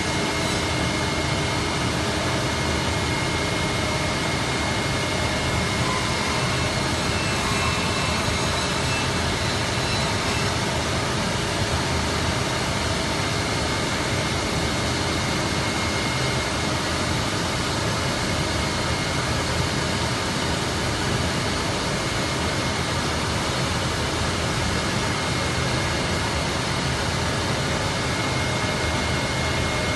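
Belotti 5-axis CNC machine running steadily: an even rushing noise with a faint, steady high whine over it.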